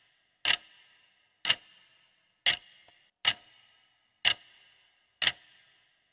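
Clock-ticking sound effect counting down the seconds of a quiz timer: six sharp ticks about one a second, each with a short fading ring.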